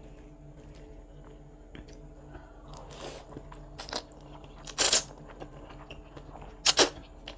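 Slurping yellow wheat noodles from a bowl of Indonesian chicken noodle soup with meatballs (mie ayam bakso). After two or three quiet seconds come a few short, hissy slurps; the loudest are about five seconds in and a quick double one near the end.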